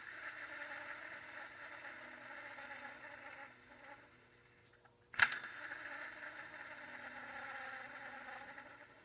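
Second-generation Honda CR-V engine running with the noise of a bad bearing in the serpentine belt tensioner pulley. It runs for about three and a half seconds and drops away. After a sharp click about five seconds in, it runs again until near the end.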